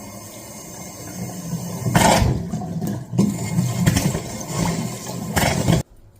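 Faucet spitting and sputtering as trapped air is purged from the water line after the water is turned back on, with irregular spurts, the loudest about two seconds in; it stops abruptly near the end.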